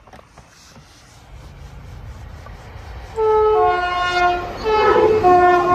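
An approaching train sounds its two-tone horn, a high note then a low note, given twice, over the growing rumble of the train.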